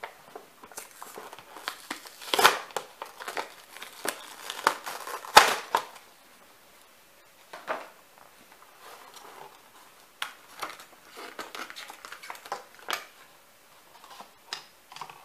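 Clear plastic blister packaging and its cardboard backing card crinkling and crackling as a diecast toy car is unboxed by hand. Irregular crackles and clicks, loudest about two and a half and five and a half seconds in, then sparser and quieter after a short pause.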